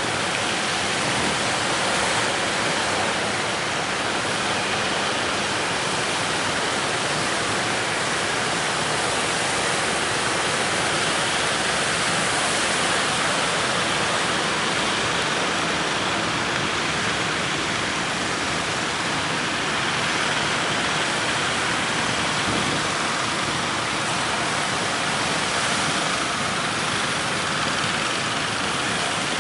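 Steady, unbroken roar of wind and breaking sea waves, hissy and even.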